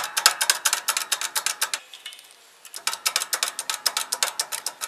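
A power tool drives a pin punch with rapid, even taps, about a dozen a second, pressing a steel valve guide into the aluminum cylinder head of a 26 HP Briggs & Stratton V-twin. The tapping stops for most of a second near the middle and then starts again.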